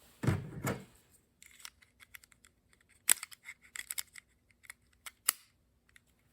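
Small plastic remote control handled as its battery is fitted: a brief rustle, then a scattered run of light clicks and taps, with two sharper snaps about three and five seconds in.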